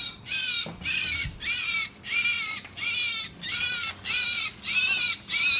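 A small bird trapped in a kitchen exhaust vent calling over and over, harsh, high calls at about two a second.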